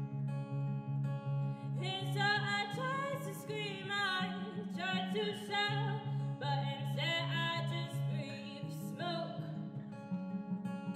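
A woman singing a slow song to her own acoustic guitar, which repeats a low bass note about three times a second. The guitar plays alone at first, the voice comes in about two seconds in, and it stops shortly before the end.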